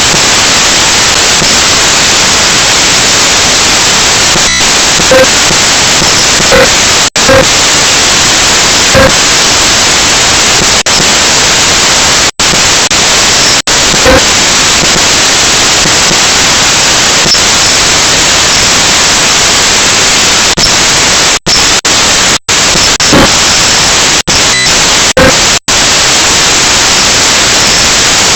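Loud, steady hiss of static that cuts out to silence for an instant several times.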